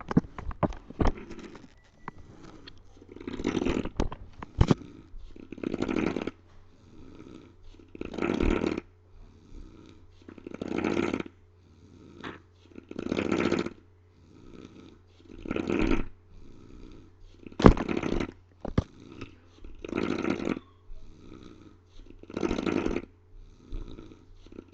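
A sleeping man snoring loudly, one long snore about every two and a half seconds. A few sharp clicks are mixed in, the loudest about 17 seconds in.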